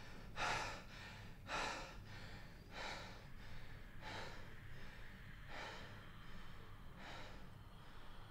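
A man breathing heavily through his mouth, with one loud breath every second or so, the breaths growing softer toward the end.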